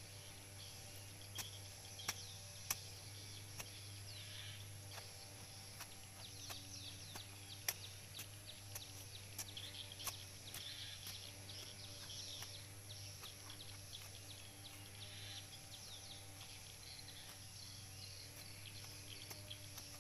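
A knife blade digging into soil: sharp, irregular clicks and knocks as it strikes the earth, a few seconds apart. Behind it, many small birds chirping and a steady low hum.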